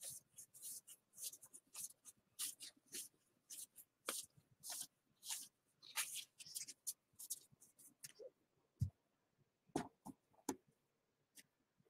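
Gypsy Queen baseball trading cards being flicked through one at a time in a hand-held stack, each card slipping off the next with a short, crisp papery swish, several a second. About nine seconds in the flicking thins out and a couple of dull thumps come.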